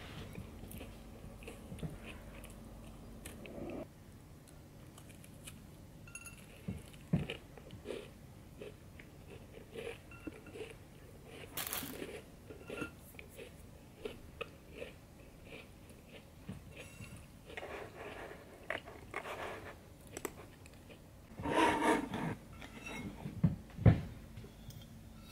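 Close-up biting, crunching and chewing of a crumbly buttery cookie, with scattered small crackles and a few louder crunches. Near the end a ceramic plate rattles and gives a sharp knock as it is picked up from the table.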